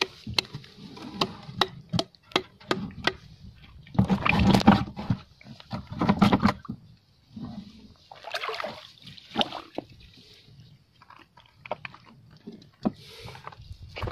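Shallow seawater sloshing and splashing as someone wades and handles things in it, with many scattered clicks and knocks and two louder splashy stretches about four and six seconds in.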